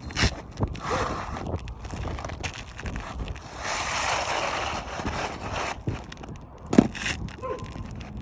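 Asphalt shingles being handled and pried on a roof: scattered knocks and clicks with a longer stretch of rough scraping about halfway through.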